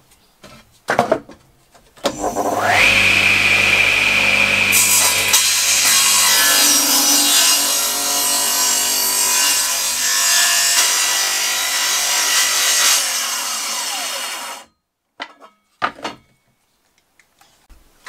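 Small table saw starting up with a rising whine, then its circular blade cutting lengthwise through an oak block from about five seconds in until about thirteen seconds in. The motor sound then stops abruptly, and a few knocks follow.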